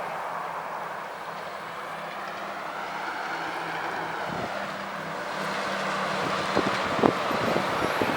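Distant jet airliner engines, a steady rushing noise that grows a little louder over the second half, with wind knocking on the microphone.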